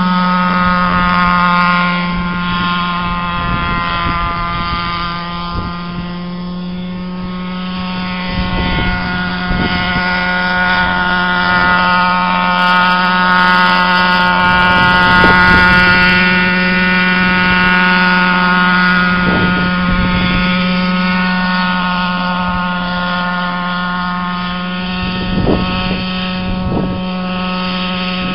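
Radio-controlled scale model Huey helicopter flying low: its engine and rotor make a steady droning whine that holds nearly one pitch throughout, with a few brief low thumps.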